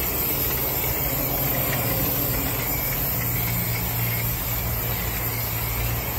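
Car wash low-pressure tyre-cleaner wand spraying foamy pre-soak onto an alloy wheel: a steady hiss of spray, with a steady low hum that grows stronger about halfway through.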